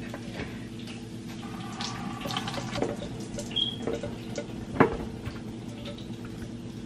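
Hot cooking water pouring out of a pot into a plastic colander and splashing down into a kitchen sink as boiled potatoes are drained. Scattered small clinks of the pot against the colander run through it, with one sharper knock about five seconds in, over a steady low hum.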